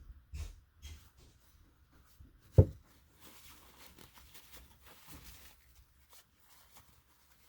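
Small RC shock parts being handled on a workbench: light clicks, one sharp knock about two and a half seconds in, then a few seconds of soft rustling.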